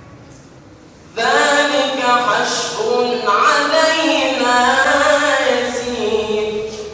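Melodic Quran recitation (tilawa): one voice starts about a second in and holds a long, ornamented phrase with slowly bending pitch, fading near the end.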